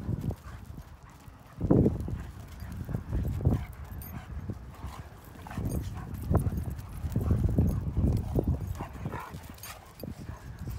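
A pack of dogs, a Great Pyrenees and husky-type dogs among them, play-fighting, with irregular low growls in short bursts and a busier run of growling in the second half.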